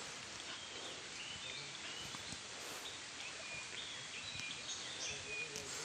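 Faint outdoor ambience: a steady background hiss with scattered short, high bird chirps.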